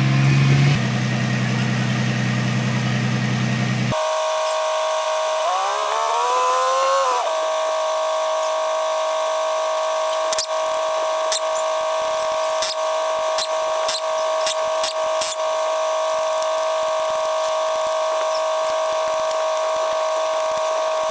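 A low steady machine hum that cuts off abruptly about four seconds in. A high steady motor whine follows; it rises in pitch as it spins up, then holds. A run of sharp clicks comes around the middle.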